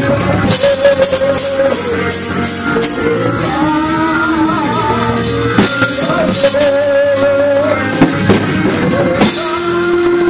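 A song with a singing voice over drums and guitar.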